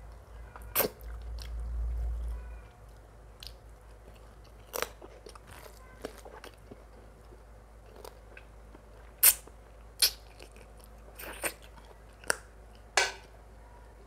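Close-miked eating of mutton curry and rice: chewing and biting with sharp wet smacks and crunches every second or so, the loudest about nine and ten seconds in. A low rumble runs under the first couple of seconds.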